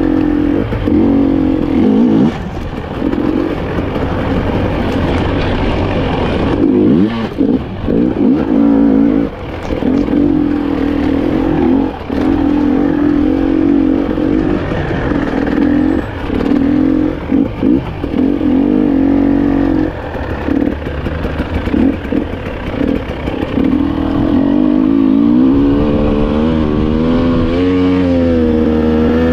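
300cc two-stroke enduro motorcycle being ridden hard off-road, the engine note repeatedly dropping out and coming back on the throttle, then revving up in a long steady rise near the end.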